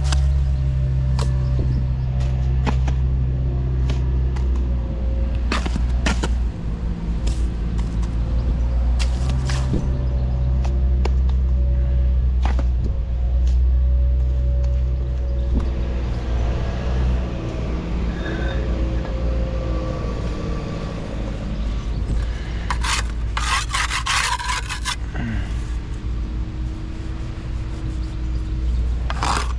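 Construction work noise: a steady low engine drone, with scattered scraping, knocks and clicks, and a quick burst of sharp rattling near the end.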